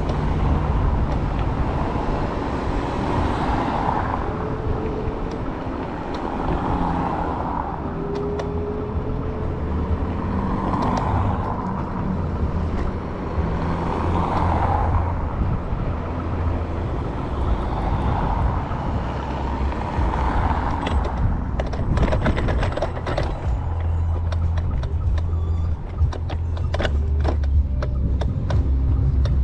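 Street traffic and low road rumble heard from a moving electric scooter. From about two-thirds of the way through comes a run of sharp clicks and rattles.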